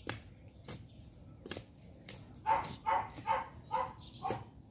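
A dog barking five times in a quick, even run about halfway through, with a few soft knocks and scrapes of a hand trowel working garden soil before it.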